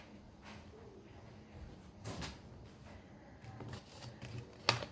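Tarot cards being handled and laid out on a table: a few soft slides and taps, with one sharper click near the end.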